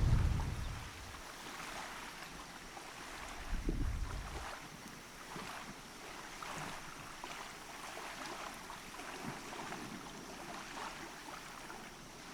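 Small waves of bay water lapping steadily, with wind buffeting the microphone twice, at the start and about four seconds in.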